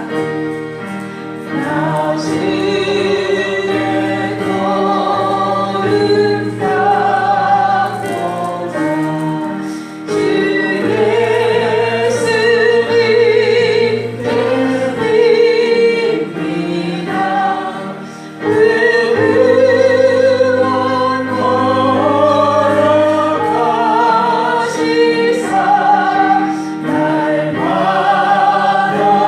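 A congregation singing a gospel hymn together, with sustained low accompanying notes beneath the voices. The singing dips briefly twice between phrases.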